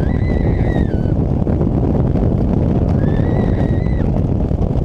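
A rider screams twice on a speeding wooden roller coaster, each a high, wavering scream about a second long, the second about three seconds in. Under the screams is a steady rush of wind on the on-board microphone and the rumble of the coaster train on the track.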